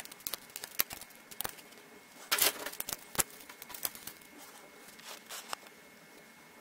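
Small clicks and crinkling of thin plastic film as the chip-on-film driver strips peeled from a laptop LCD panel are handled in the fingers, with one louder rustle about two and a half seconds in and a sharp tick just after it.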